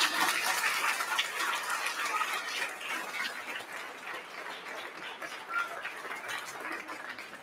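Crowd applauding and cheering, the clapping gradually dying away over several seconds.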